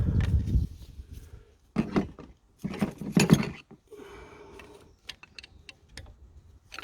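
Hands working at the engine: rustling, knocks and a few small sharp clicks as the plastic diesel leak-off pipe connectors are pushed onto the injectors and clipped in. The handling is loudest in the first second and again around two and three seconds in, then drops to scattered clicks.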